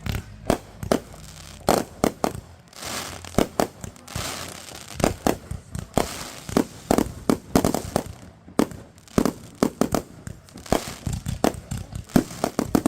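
Consumer fireworks going off: a long run of sharp bangs and cracks at uneven spacing, with spells of rapid crackling in between.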